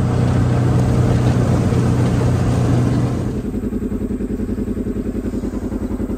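Side-by-side UTV engine running: a steady, higher hum for about three seconds, then dropping back to a slower, evenly pulsing beat as the throttle eases off.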